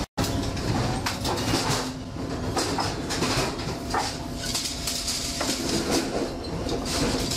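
Box conveyor and automatic strapping machine running: a steady low hum under irregular clatter and clicks.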